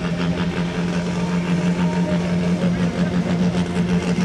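Supersport-class pulling tractor's diesel engine running steadily at the start line, holding an even note with no revving.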